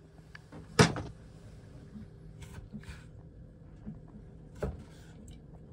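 Kitchen knife cutting kiwi fruit on a cutting board: a sharp knock of the blade against the board about a second in, a smaller knock near the end, and soft brief slicing sounds in between.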